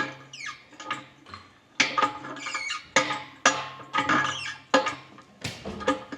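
Engine hoist and engine being worked up out of the engine bay: sharp metal clanks about once a second, with high creaking squeaks that bend in pitch.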